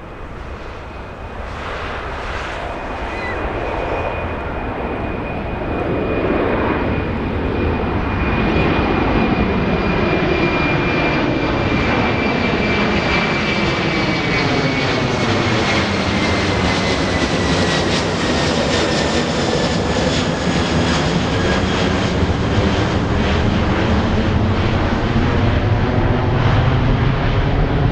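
Airbus A330 jet airliner climbing out after takeoff and passing overhead. The engine noise swells over the first several seconds and then stays loud. A high whine slowly drops in pitch as the plane goes over, and a deep rumble grows near the end as it heads away.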